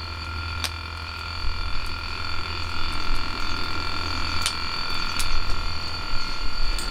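Lid of a Uniflame camp hagama rice pot buzzing steadily as steam pushes out under it while the rice boils, a loud buzzer-like drone at several fixed pitches. A few sharp clicks sound over it.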